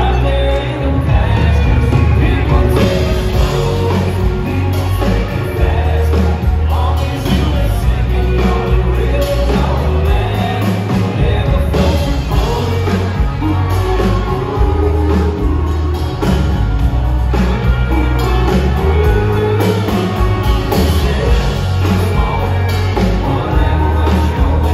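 Live country band playing: several singers over electric guitars, bass and drums, with a strong steady bass beat.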